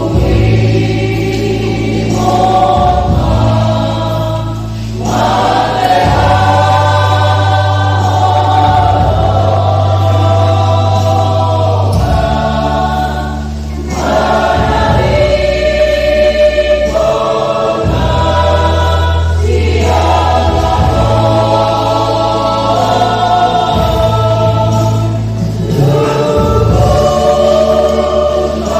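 Church choir singing a Batak hymn in parts, in long phrases with short breaths between them, over sustained low bass notes.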